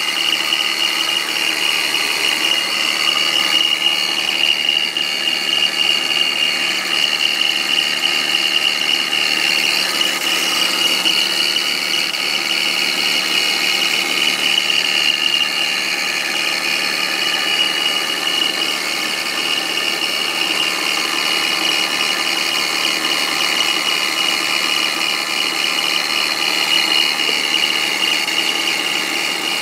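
2001 BMW 520i's M54 straight-six engine running with a steady high-pitched whistle over it. It is the noise the owner hears loudest in drive and reverse and faint in park and neutral, seeming to come from near the fan shroud. A new belt, pulleys, alternator, water pump and fan clutch have not cured it.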